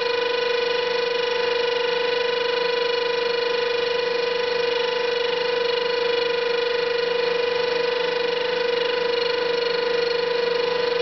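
CBN-tipped lathe tool cutting a hardened ballscrew and chattering with a steady, high-pitched ringing tone rich in overtones. The chatter is the sign that the long screw is flexing too much under the cut.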